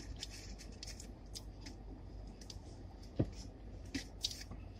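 Quiet scattered clicks and rustles of people eating and handling food, with one sharper click about three seconds in.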